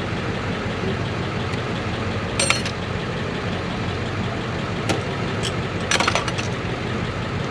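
A steady, low, engine-like drone from a running motor, with a few sharp metallic clinks: one about two and a half seconds in, a lighter one near five seconds, and a quick cluster around six seconds.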